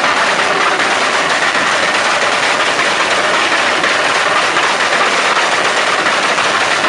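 Turbocharged car engine on antilag, its exhaust crackling in a fast, unbroken rattle of pops.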